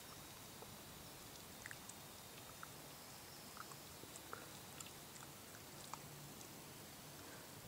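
Near silence: faint outdoor ambience, a soft steady hiss with a few scattered faint ticks and a thin high tone now and then.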